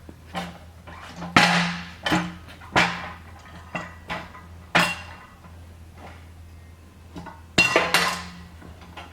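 Steel pallet jack being turned back over onto its wheels: a series of sharp metal clanks and knocks with short ringing, loudest about a second and a half in and again near the end.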